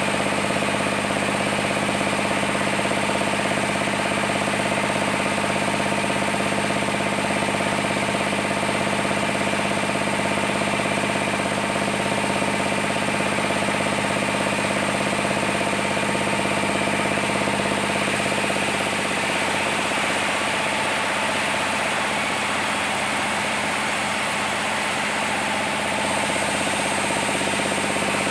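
Sawmill machinery running steadily with an even engine hum; the tone shifts for several seconds about two-thirds of the way through, then settles back.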